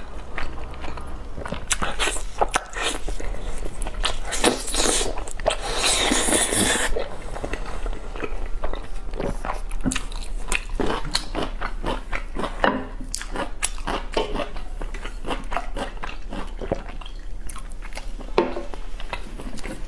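Close-miked chewing and biting of braised beef tendon: many short wet mouth clicks and bites, with a louder noisy stretch of about a second some six seconds in.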